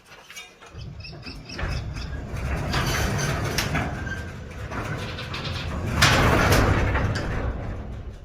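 Sectional garage door, released from its opener, being pulled down by hand: its rollers rumble along the tracks while its dry, unlubricated joints squeak. The rumble builds and is loudest about six seconds in.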